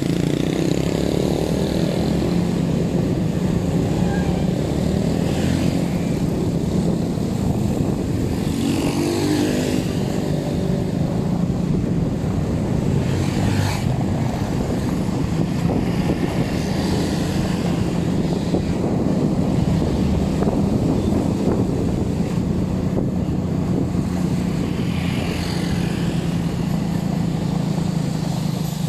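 A motor vehicle's engine running steadily with a low, even hum, heard while the vehicle travels along.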